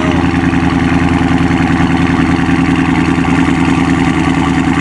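2020 Dodge Charger Scat Pack's 6.4-litre HEMI V8 idling steadily with an even, rapid pulse, running through an exhaust with the mid-muffler cut off and new 5-inch tips.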